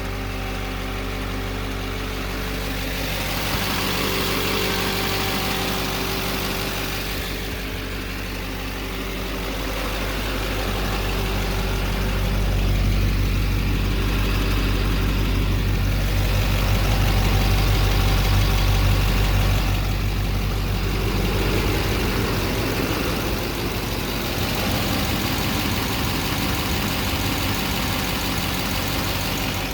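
Duramax 6.6 L V8 turbo-diesel of a 2009 3500HD pickup running steadily, with a whining noise whose cause the owner does not know.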